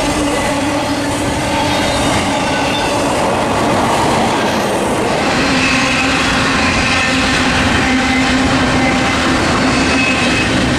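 Double-stack container freight cars rolling past on steel rails: a steady, loud wheel-and-rail noise with thin whining tones over it. The sound changes abruptly about five seconds in as a second passing train takes over.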